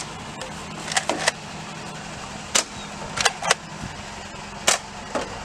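Nerf blaster firing about seven times, each shot a short sharp pop, some coming in quick pairs, over the steady hum of a car driving.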